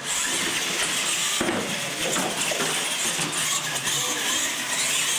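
Radio-controlled monster trucks launching off the start line and racing down a concrete track, their drivetrains and tyres running loudly. The sound starts suddenly and holds steady.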